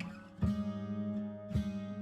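Background music: strummed acoustic guitar chords, struck about once a second and left ringing.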